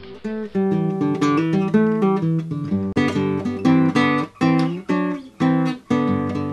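Theme music played on acoustic guitar, a run of plucked chords.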